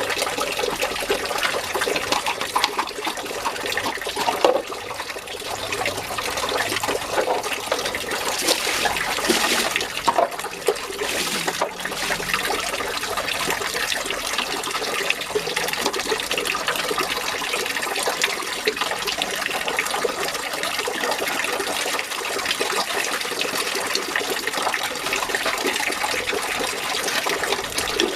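Running water splashing and trickling steadily.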